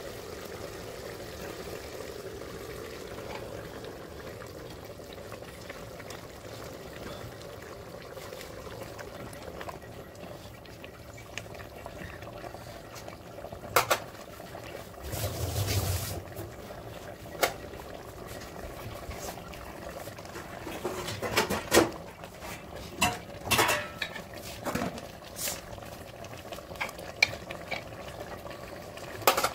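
Food bubbling in a cooking pot, with a metal spoon knocking and scraping against the pot several times in the second half.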